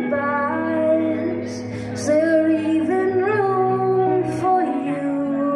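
Live band music: a woman singing long, held notes into a microphone over electric guitar.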